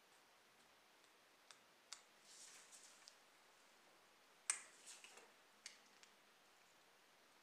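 Faint small clicks and taps of a clear plastic part being handled and pressed into the metal front end of a scale model car, the sharpest click about four and a half seconds in.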